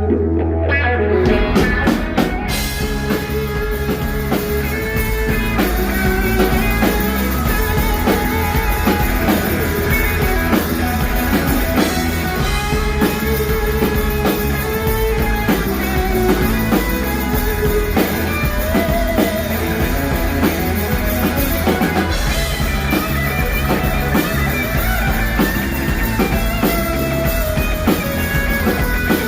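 Rock band playing live, with electric guitar, drum kit and singing. A few sparse guitar notes open, and the full band comes in about two seconds in.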